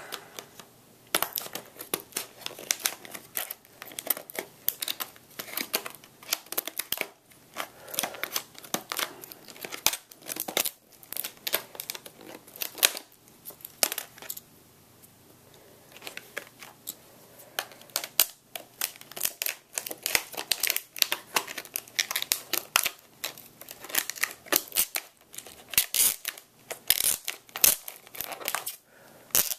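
Stiff clear plastic clamshell packaging being cut open with scissors and handled: irregular crinkling and crackling of the plastic with sharp snips. There is a lull of about two seconds near the middle.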